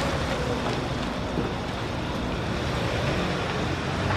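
A car driving past, its engine and tyres giving a steady sound.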